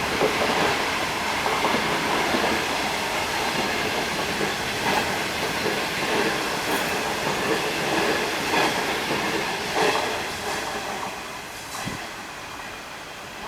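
A through train of 25Z passenger coaches behind a DF11 diesel locomotive passing at speed: a steady wheel-on-rail rumble with clacks as the wheels cross rail joints. It dies down from about ten seconds in.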